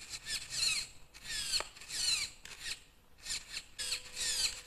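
Steering servo of an RC crawler being swung back and forth from the transmitter, whirring in a rapid series of short strokes, each falling in pitch; it is being tested just after being connected to the receiver.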